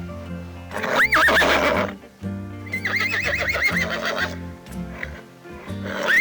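A horse neighing: a short rising-and-falling call about a second in, then a long quavering whinny, and another call beginning near the end. Background music plays underneath.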